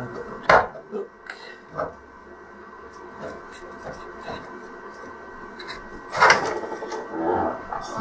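Handling noise inside an opened plastic LCD TV case: a knock about half a second in, soft rubbing and scraping of wires and the circuit board, and a louder knock and scrape about six seconds in as the main board is moved.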